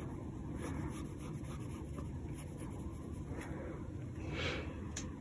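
Faint scratching of a Staedtler graphite pencil drawing short strokes on sketchbook paper, with a brief soft swish about four and a half seconds in.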